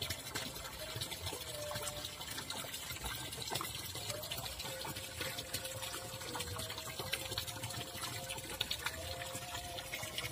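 Shallow water running and trickling over stones in a narrow muddy ditch, a steady rushing hiss. A faint wavering tone sits in the background.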